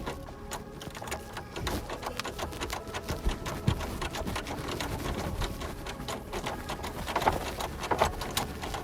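Irregular metallic clicking and rattling of a key being jiggled in a Saturn SL1's worn ignition lock cylinder, which is sticking and won't turn easily.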